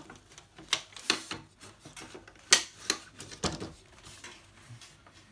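Hands handling a bamboo laptop table: a scattered series of sharp clicks and light wooden knocks, the loudest about two and a half seconds in.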